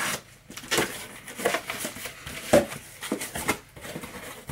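A knife slicing through the packing tape on a cardboard box, then the box flaps being pulled open, in a run of short, irregular scrapes and cardboard rustles.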